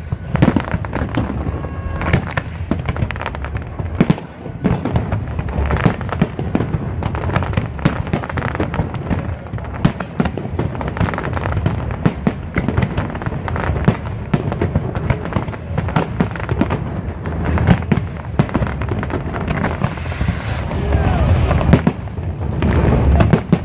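Fireworks display: a dense, continuous barrage of bursting shells, several bangs a second over a low rumble, with a spell of crackling near the end.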